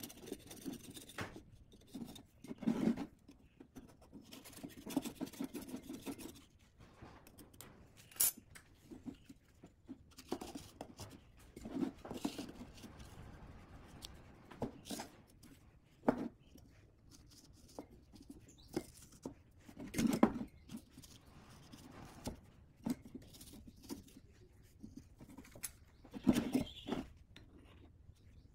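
Metal blade scraping and tearing the old paper cones out of small speaker drivers in metal frames: irregular scrapes, rips and light clicks against the metal, with short pauses between them.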